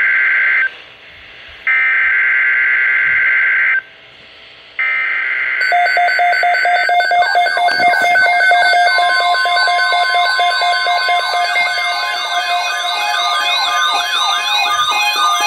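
Emergency Alert System SAME header data bursts, harsh two-tone digital screeching that opens an alert, here a Severe Thunderstorm Watch: one burst ends under a second in, and two more follow with about a second's pause before each. From about six seconds in, alert tones take over: steady tones with a repeating falling sweep, about two or three a second, and another steady tone joins about nine seconds in.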